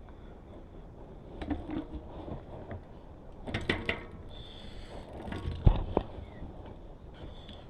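Scattered clicks, knocks and rustles of a bicycle wheel being handled and fitted back into the frame, with one sharp knock a little past halfway.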